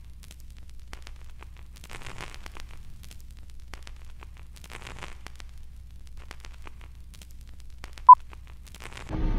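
Old-film countdown leader soundtrack: a steady low hum with scattered crackles and clicks of film noise, swelling briefly twice. A single short beep sounds near the end.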